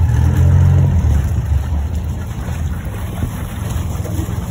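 Small passenger ferry's engine rumbling low while the boat manoeuvres alongside the landing; the rumble is heaviest at first and eases off about a second in.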